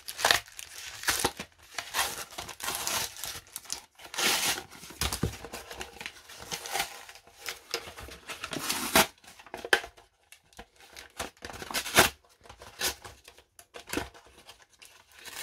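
Cardboard and plastic blister packaging of Pokémon card tripacks being torn open and crumpled by hand, in irregular rips and crinkles. A few sharp snaps stand out, the loudest about nine and twelve seconds in.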